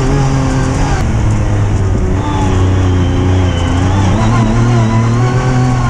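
Yamaha YXZ1000R side-by-side's three-cylinder engine running under load as it drives a dirt trail, the revs easing and picking up again a couple of times.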